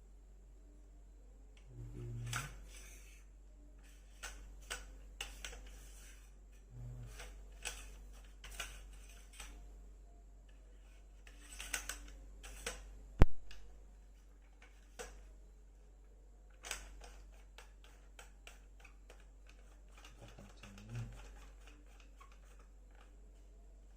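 Irregular clicks and knocks of metal detector parts being handled and fitted together during assembly, with one sharp, loud click about thirteen seconds in.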